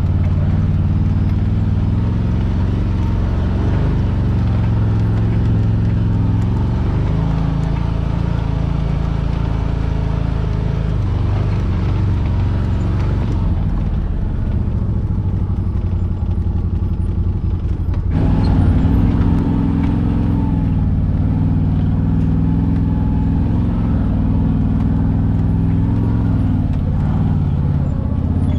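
Engine of a side-by-side UTV running at low trail speed, a steady drone heard from on board. It eases off in the middle, then the revs step up suddenly about two-thirds of the way through and hold.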